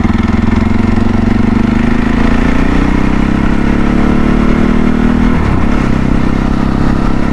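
CSC RX4 motorcycle's 250cc single-cylinder engine, new and being run in, pulling under throttle while riding. Its pitch climbs gently for a few seconds, then dips sharply about five and a half seconds in and carries on.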